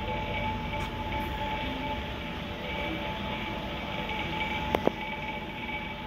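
Steady hum and rumble of aquarium filters and air pumps, with a faint steady whine over it. Two sharp clicks close together about three-quarters of the way through.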